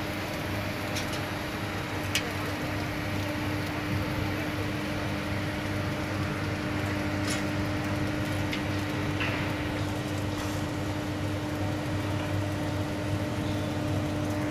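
Steady hum of site machinery: a constant mid-pitched tone over a low drone, with a few faint clicks.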